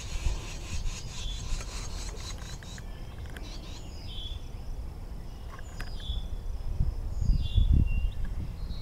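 Outdoor ambience: low wind rumble on the microphone, gusting louder about two thirds of the way in, with short high bird chirps now and then.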